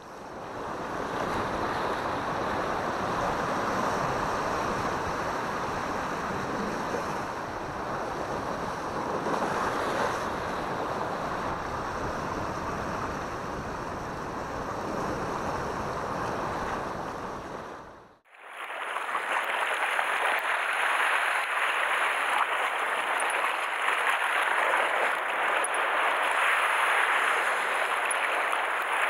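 Sea surf washing over and against shore rocks, a steady rushing wash with some wind on the microphone. It fades out about two-thirds of the way in and comes back brighter and thinner.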